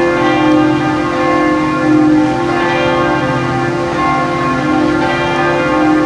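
Bells ringing continuously, many overlapping tones sustained, renewed by fresh strikes every couple of seconds.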